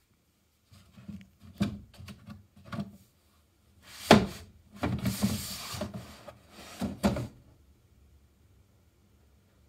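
Storage boxes being pushed and shifted on a wooden shelf by a cat: a string of light knocks and bumps, a sharp knock about four seconds in, then a second or so of scraping and another knock.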